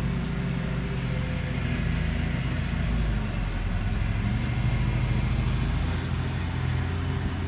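Electric motor of a dump bed actuator running under power with a steady hum, driving the threaded rod back into the unit; the hum shifts in pitch about three seconds in and again near six seconds.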